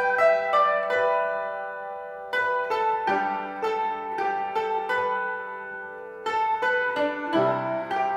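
Background music on a plucked string instrument: a slow melody of single notes, each plucked and left to ring out and fade.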